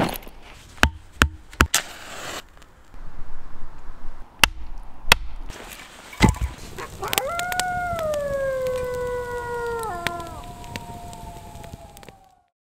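A few sharp knocks and clatters, then a wolf howling: one long call that rises and then slowly falls, with a second, higher howl overlapping it and gliding down until it stops near the end.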